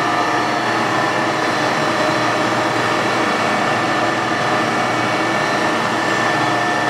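Servo SE1640 16.5 x 40 engine lathe running at its top spindle speed of 2,000 RPM: a steady hum from the spindle and geared headstock, with several steady whining tones. Very smooth, very quiet.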